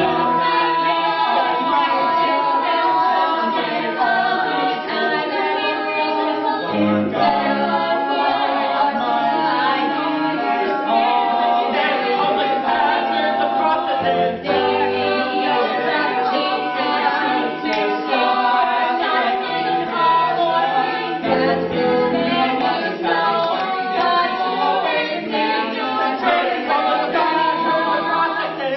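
A chorus of voices singing a stage-musical number, held notes moving through changing chords, with little or no audible accompaniment.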